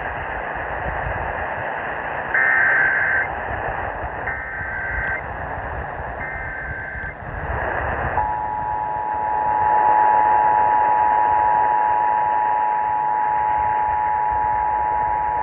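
Emergency Alert System test tones received over a hissy radio broadcast: three short bursts of the SAME digital header data tones, about a second each, then the steady two-tone EAS attention signal held for about eight seconds.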